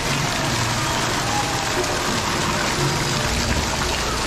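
A steady, even hiss of noise with faint music underneath.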